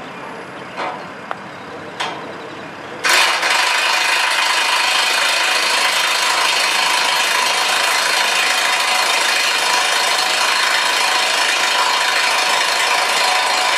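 Corded electric impact wrench running a nut down a column anchor bolt: a loud, steady power-tool noise that starts suddenly about three seconds in and runs for about ten seconds. A few light knocks come before it.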